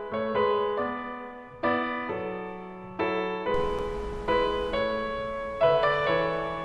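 Piano music, chords struck about once a second and left to ring away. About halfway through, a steady low rumbling hiss joins underneath the music.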